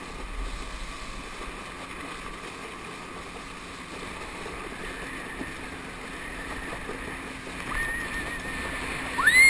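Motorboat running steadily with the rush of water and wind. Near the end a high, held whistle-like tone comes in and turns louder just before the end.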